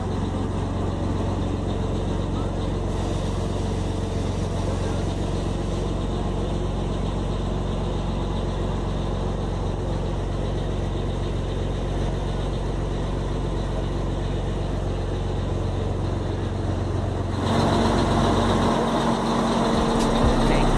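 Scania 111 truck's diesel engine idling steadily, heard from inside the cab. Near the end the sound changes and gets louder.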